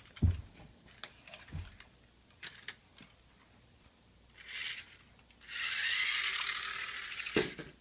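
Toy remote control car: scattered clicks and knocks, then its small electric motor and plastic gears whirring, briefly about four and a half seconds in and then for about two seconds, followed by a knock near the end.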